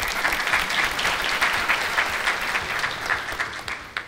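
Audience applauding: many people clapping at once, tailing off and stopping near the end.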